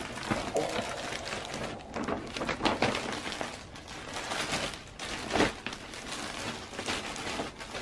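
Plastic bags rustling and crinkling in irregular bursts as a hoodie in a clear poly bag is handled and pulled out of a white plastic shopping bag.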